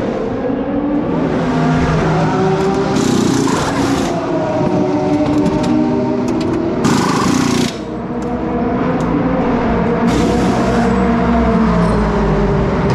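Race car engines running in the pit lane, several pitched engine notes overlapping and shifting as they rev and settle. Two short bursts of hiss come about three and seven seconds in.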